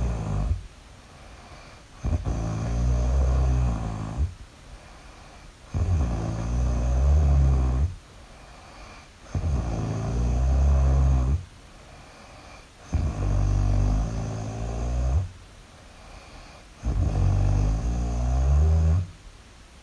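A person snoring really loud in a steady sleeping rhythm: a low, pitched snore about two seconds long comes roughly every three and a half seconds, five full snores in all, with much quieter gaps between them.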